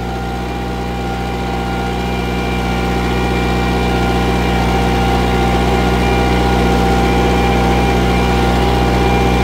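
Kubota farm tractor's diesel engine running at a steady speed, growing louder over the first few seconds.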